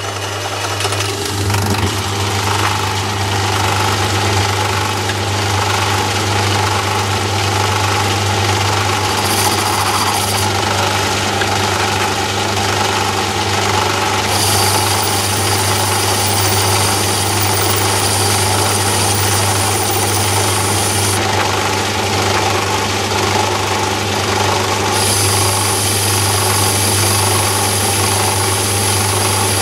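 Myford ML7 lathe running steadily with a strong low motor hum, started just before. A high hiss comes and goes over it, briefly about a third of the way in, then for several seconds at a time in the second half, as the tool takes a light 2 thou test cut along a mild steel bar to check the bed for a turning taper.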